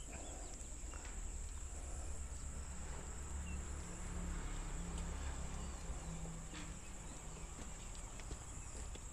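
Steady high-pitched insect chorus, with a faint low rumble underneath that swells slightly in the middle.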